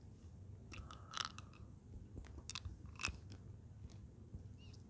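Close-miked mouth sounds of eating a Jolly Rancher hard candy: irregular wet clicks and small crunches as the candy is worked against the teeth, right at a clip-on microphone held to the lips.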